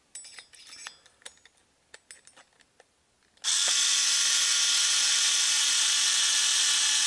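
Light clicks of a hex driver bit being seated in a screw. About three and a half seconds in, a cordless electric screwdriver starts and runs at a steady pitch, backing a screw out of a Traxxas TRX 3.3 nitro engine's cooling head.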